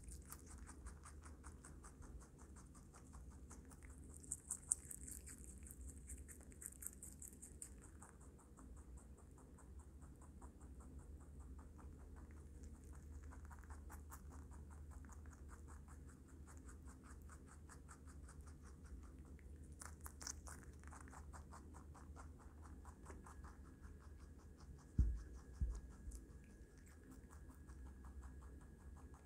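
Baby rabbit chewing chopped lettuce and carrot close to the microphone: faint, rapid, fine crunching nibbles. Near the end come a couple of dull thumps, the loudest sounds.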